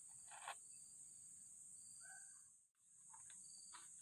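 Faint, steady high-pitched drone of an insect chorus, crickets or similar, with a few short faint rustles; it drops out for an instant nearly three seconds in.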